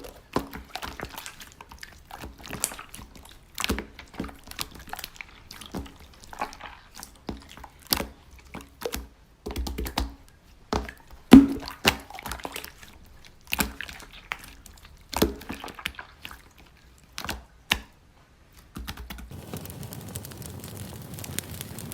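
Slime being squished and poked by hand, making irregular sticky clicks and pops. About 19 s in, a steady rustling hiss takes over.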